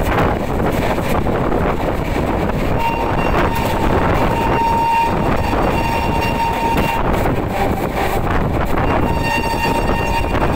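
Indian Railways express train sounding a shrill horn as it passes at high speed, over the rushing noise of the train and wind. A long horn blast of about four seconds starts about three seconds in, and a shorter blast comes near the end.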